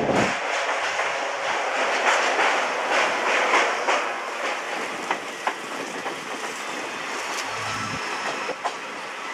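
Passenger train coaches running on the track, heard from aboard the moving train: a steady rush of rolling noise and wind with a few sharp clicks of wheels over rail joints. A deep rumble cuts out just after the start, and the sound slowly grows quieter.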